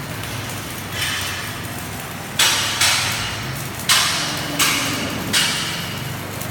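A hammer striking metal about six times at an uneven pace, each knock with a short ringing tail, over a steady low machine hum.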